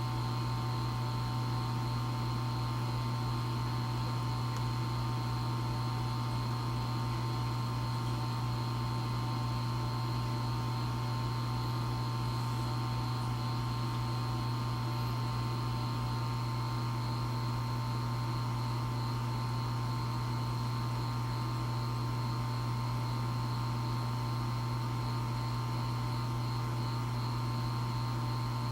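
EcoTech Marine Vortech MP60 aquarium propeller pump running on constant mode: a steady hum with a thin high whine over it. A low fluttering pulse under the hum evens out about halfway through, the kind of varying noise the owner reports as a problem with the pump.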